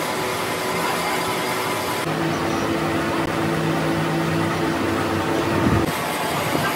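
Metal lathe running, a steady mechanical running noise. About two seconds in it changes to a steadier low hum, which stops shortly before the end.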